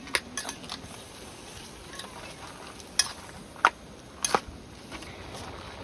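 Cooking at a camp meal: a few sharp clinks of utensils against cookware or dishes, two of them ringing briefly, over a faint sizzle.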